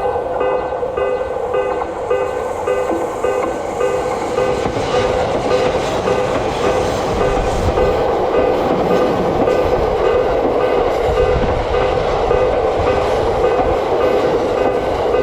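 Japanese railroad crossing's electronic warning bell ringing in a quick, even repeat, while a JR Nambu Line electric train passes with a rumble and clatter of wheels on rail that builds after a few seconds.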